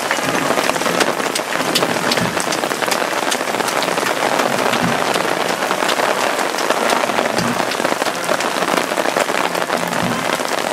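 Steady rain falling on wet pavement, with many sharp, close raindrop taps.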